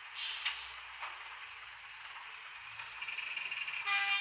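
ESU LokSound DCC sound decoder playing Class 03 diesel shunter sounds through a small loose speaker: a steady, hissy engine sound, with a short, louder pitched tone near the end.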